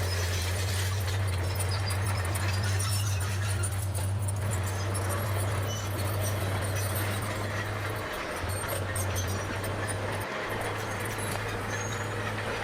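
Bulldozer's diesel engine running steadily at work, a low even hum that drops out briefly twice in the second half.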